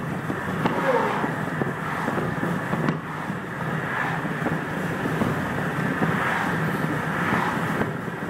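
Car driving along at road speed, with a steady rush of wind past an open window.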